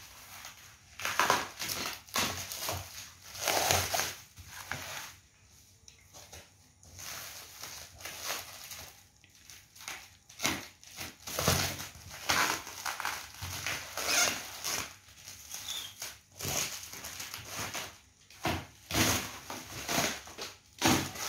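Clear plastic stretch wrap crinkling and tearing in irregular bursts as it is slit with a box cutter and pulled off a cardboard parcel.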